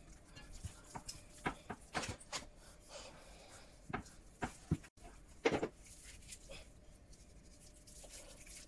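Hands rubbing and patting seasoning into raw chicken on a wooden cutting board: soft, irregular wet slaps and rubbing, with a louder slap about five and a half seconds in.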